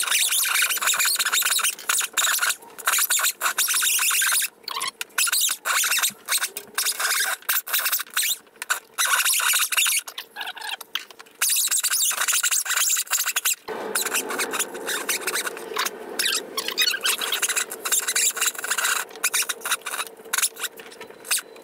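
Straight die grinder with a soft brush disc scrubbing old gasket residue off the deck of a cast-iron A-series engine block. It makes a high-pitched, rasping, squeaky scrub that starts and stops many times. A steady hum joins it about two-thirds of the way through. The brush is only cleaning the surface, not removing metal.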